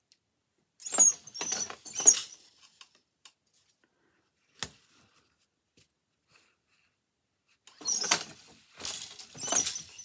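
Leclerc Artisat four-shaft wooden floor loom being worked by hand: two spells of clattering knocks and rattles, about a second in and again near the end, with a single sharp click in between.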